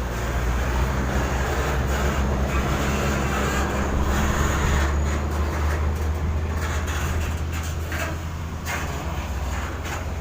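A vehicle engine running with a steady low hum, over a constant outdoor noise, with a few short knocks or rustles in the second half.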